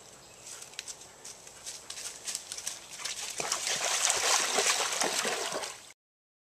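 A dog wading and splashing through shallow standing water, starting about halfway through. The sloshing cuts off suddenly near the end.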